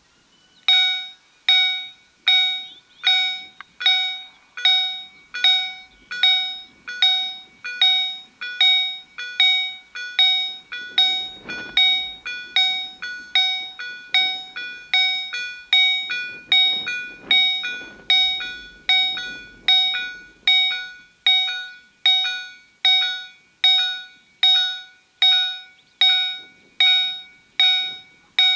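Level-crossing warning bells (EHL-S10 electromechanical bells of a COB-63A ZWUS crossing system) start up just under a second in and strike steadily, about four rings every three seconds, each ring dying away before the next. Their ringing means the crossing's automatic warning has been triggered by an approaching train.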